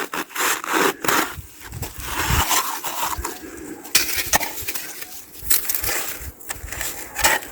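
Compacted snow crunching in a dense string of short, sharp crunches.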